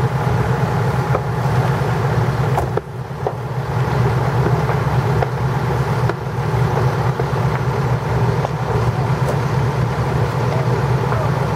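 Fire truck engine idling steadily close by, a low rumble with a fast flutter, and a few faint pops over it.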